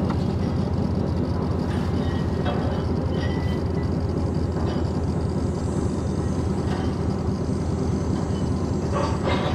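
Truck engine idling, a steady low rumble heard from inside the cab, with a few faint knocks now and then.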